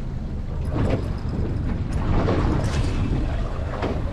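Boat engine running steadily at trolling speed, mixed with wind and water noise, with a few louder swells.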